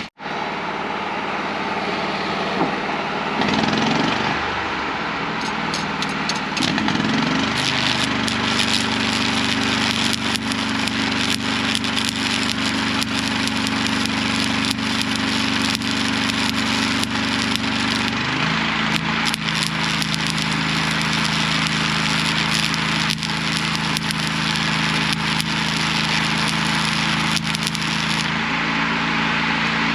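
Electric arc welding on a steel excavator stick: a continuous crackling and spitting from the arc as the ears are welded back on. An engine runs steadily underneath, its pitch shifting about two-thirds of the way through.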